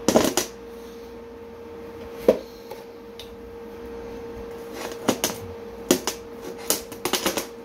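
Handling noise: scattered knocks and clinks as small steel parts and a locking clamp are set down and moved on a sheet-steel plate, a cluster at the start, one a couple of seconds in, and several near the end, over a steady hum.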